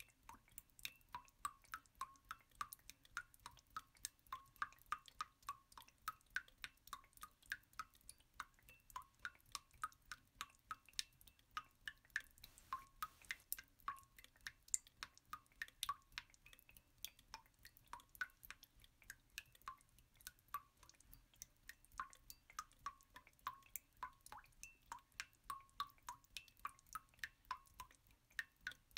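Faint water-drip sounds in a steady, slightly uneven stream of about three drips a second, running without pause.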